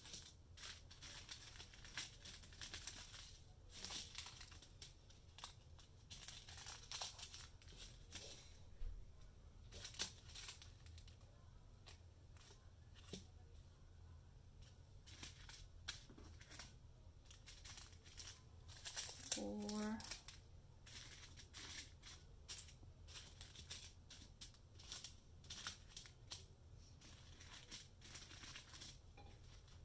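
Small plastic bags of diamond-painting resin drills crinkling and rustling in short irregular spells as they are picked up, sorted and set down. A brief sound of voice comes about two-thirds of the way through.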